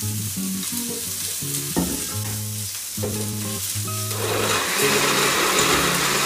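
Countertop blender motor switching on about four seconds in and running steadily, whirring as it purées cooked tomato and onion for a salsa. Before that there is a single knock as the food goes into the glass jar.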